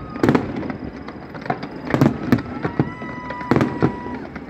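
Aerial fireworks bursting overhead: a handful of sharp bangs, the loudest about two seconds in and again about three and a half seconds in. A steady high whistle-like tone sounds for about a second and a half in the second half.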